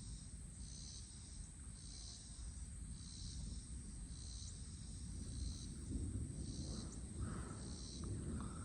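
Insects calling: a steady high buzz with a pulsing chirp about once a second, over a low steady rumble.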